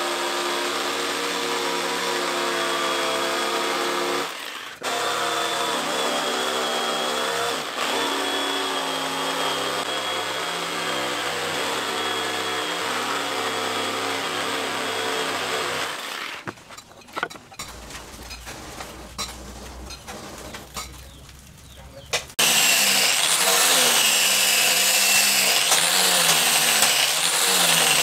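Electric jigsaw cutting a wooden handle blank, running steadily with two short breaks, then stopping about sixteen seconds in. A few seconds of quieter knocks and handling follow. Then an angle grinder with a sanding disc starts up and runs loud on the wood, its pitch wavering as it is pressed on.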